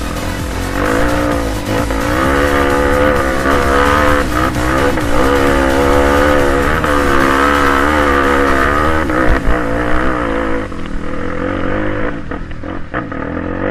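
Trail motorcycle engine revving hard under load up a steep dirt climb, its pitch rising and falling as the throttle is worked, then easing off after about ten seconds.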